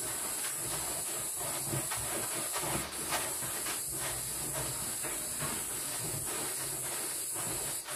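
Hands rubbing and rolling homemade couscous granules in a metal tray: a soft, repeated rustle of grain, over a steady high hiss.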